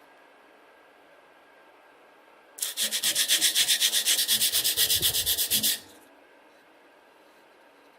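Rapid, even scraping strokes, about eight a second, starting about two and a half seconds in and stopping about three seconds later.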